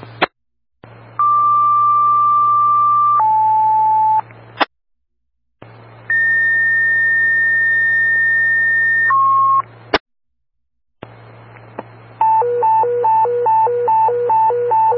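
Fire-dispatch paging tones over a radio scanner: a two-tone sequential page (a steady tone for about two seconds stepping down to a lower tone for one), then a second page (a higher tone held about three seconds dropping to a short lower one), then fast alternating high-low alert beeps near the end. Each transmission carries a steady radio hiss and hum and ends in a squelch click; the tones alert the stations about to be dispatched.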